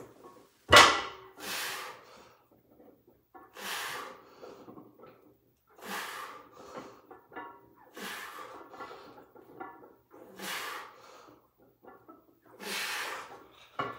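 A man breathing out hard through a set of barbell bent-over rows: a sharp exhale with each pull, about every two seconds, the loudest one near the start.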